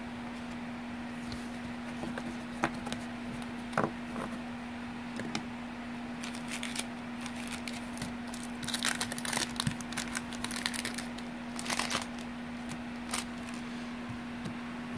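Baseball trading cards being flipped and slid against one another: soft scattered clicks and rustles, busiest a little past the middle, over a steady low hum.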